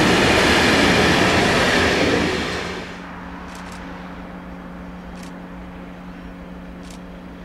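Freight train of covered hopper wagons rolling past, its wheels rumbling on the rails. The rumble falls away about two and a half seconds in, leaving a steady low hum with a few faint high-pitched chirps.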